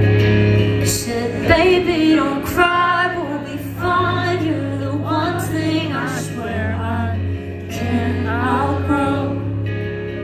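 Live band music heard from among the audience: a woman sings a long, wavering line without clear words over guitar and a steady low bass note.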